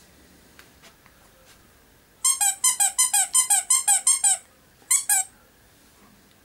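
Squeaky dog toy squeezed rapidly: a quick run of about ten high squeaks, each dropping in pitch, then two more after a short pause.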